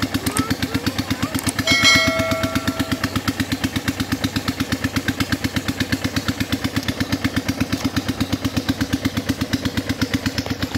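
A small engine running steadily with an even, rapid chugging beat. A brief pitched tone sounds about two seconds in.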